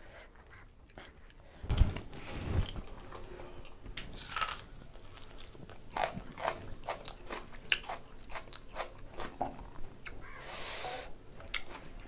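Close-miked chewing and lip-smacking of a man eating mutton biryani by hand, with a quick run of short wet clicks through the middle and a dull thump about two seconds in.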